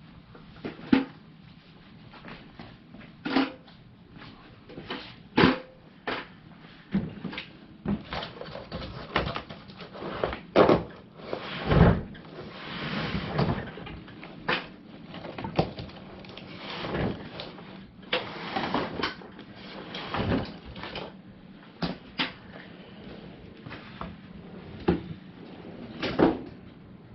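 Irregular knocks, clunks and scraping from a tool cabinet and its parts being moved and handled, with a heavy thump about twelve seconds in the loudest.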